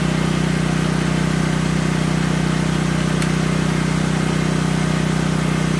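Portable gasoline generator running steadily at a constant speed, with an even hum.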